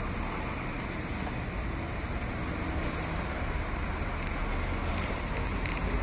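Steady cabin noise inside a moving city bus: engine and road rumble, with a few faint clicks near the end.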